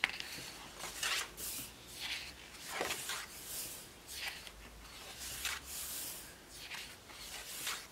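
Pages of a paper pad being turned and smoothed by hand: a string of soft, papery swishes and rustles.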